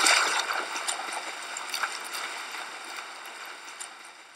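Open-water swimmers splashing and churning the water, loudest at first and fading away.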